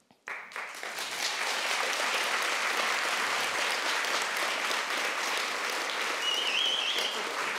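Audience applauding, breaking out suddenly just after the start and keeping up at a steady level.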